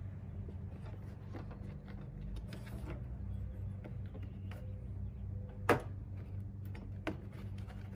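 Plastic windshield cowl panel being worked loose and lifted by hand, with scattered light clicks and rattles and one sharp snap about two-thirds of the way in, over a steady low hum.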